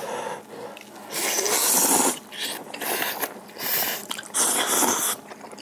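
Kalguksu noodles in broth being slurped in several hissy bursts of up to about a second, with quieter chewing between.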